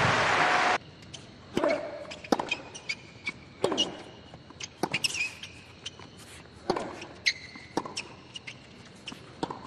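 Crowd applause that cuts off abruptly under a second in, then a tennis rally: tennis balls struck by rackets about once a second, several shots carrying a player's short grunt.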